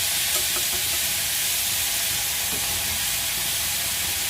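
Minced pork sizzling steadily as it stir-fries in a hot frying pan.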